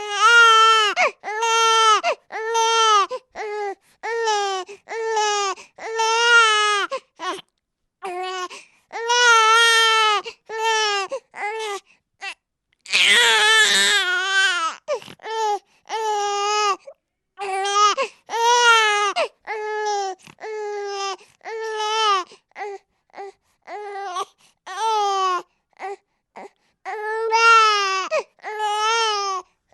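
Baby crying hard in repeated wails, each about half a second to a second long, with short catches of breath between them, and one longer, harsher scream about halfway through.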